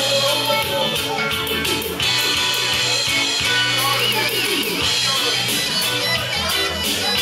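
Live band playing an instrumental passage: guitar over bass and regular drum hits, with a wavering high lead line about four seconds in.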